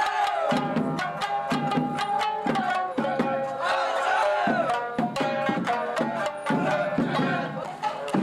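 Festival dance music: drums struck in a quick, even beat, about four strokes a second, under a sustained melody.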